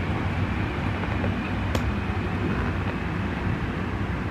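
A steady low rumble with even loudness, and one faint click nearly two seconds in.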